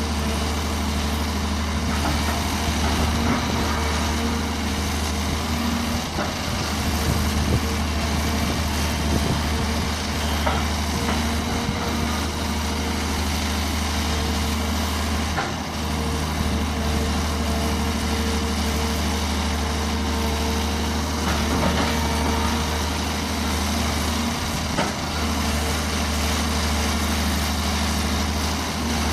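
Daewoo long-reach excavator's diesel engine running at a steady pitch, an even low drone with a few faint knocks along the way.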